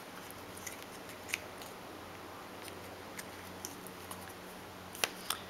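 Plastic key fob case being handled and its two halves fitted back together: a few faint, scattered clicks, with two sharper plastic clicks near the end.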